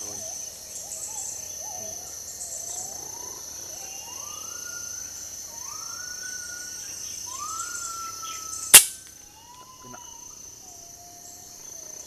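A single sharp crack of an FX Crown PCP air rifle firing, about nine seconds in and the loudest sound by far. Before it comes a series of rising bird whistles, each gliding up and then held, over a steady high insect buzz.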